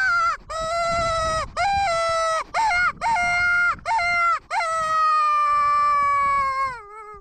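Dingo-style howling, loud and close: a run of short, steady-pitched howls with brief breaks and small jumps in pitch, ending in one long howl that falls away near the end.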